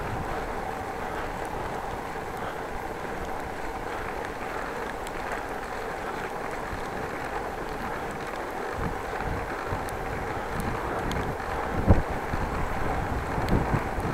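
Bicycle ride on a wet street: a steady rush of tyre and wind noise, turning into a rougher low rumble about nine seconds in, with a single jolt about twelve seconds in.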